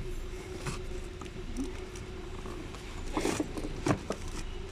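Plastic handling noise from a car headlight assembly: scattered scrapes and clicks as the lens is pressed back onto its sealant-softened housing, with a short rasping scrape about three seconds in and a sharp click just after.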